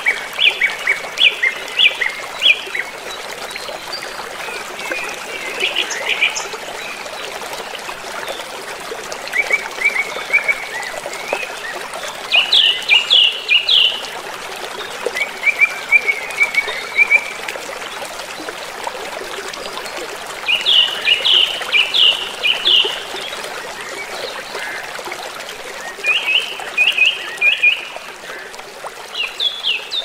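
Shallow river rushing over rocks in a steady stream, with birds singing short phrases of rapid high chirps every few seconds.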